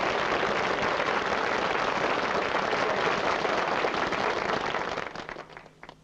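Audience applauding, dying away about five seconds in to a few last scattered claps.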